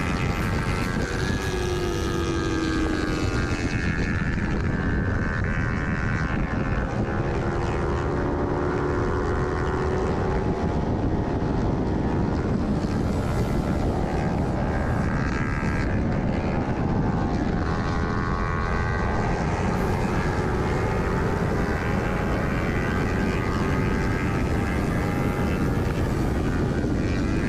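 Kawasaki Ninja 300's parallel-twin engine at race speed, its pitch climbing through the revs and falling back again and again as the rider shifts, over a heavy rush of wind.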